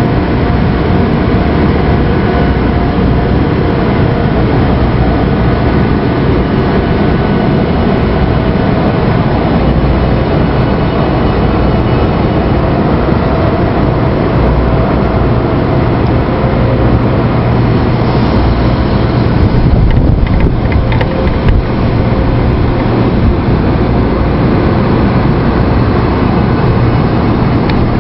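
A 300 series Shinkansen train rolling across a level crossing, a loud, steady rumble of wheels and running gear, with a few sharp clicks about two-thirds of the way through.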